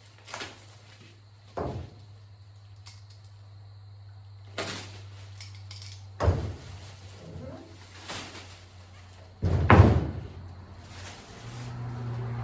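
Steel rolling tool cabinet and its loose parts being handled: about six separate knocks and thuds, the loudest about ten seconds in, over a steady low hum.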